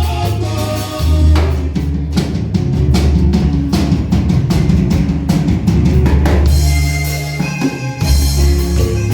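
Band music with a drum-heavy passage: a quick run of drum-kit and percussion hits over a bass line, in a Latin dance style.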